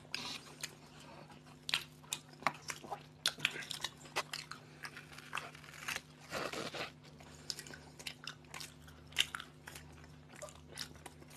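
People biting and chewing toasted bread sandwiches, with irregular crisp crunches of the toast as they eat.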